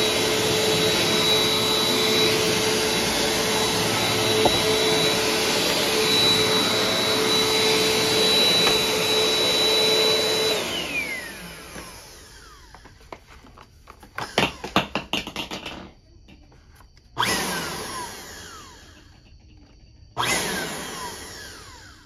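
Bissell CleanView Compact upright vacuum running steadily with a constant whine, then switched off about halfway through, its whine falling as the motor spins down. After some rattling and clicks, two short bursts of the motor near the end each die away with a falling whine.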